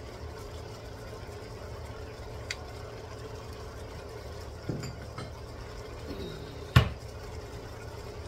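Squid and green beans cooking quietly in a hot wok over a steady low hum. A few light knocks sound, and a sharp knock about seven seconds in is the loudest.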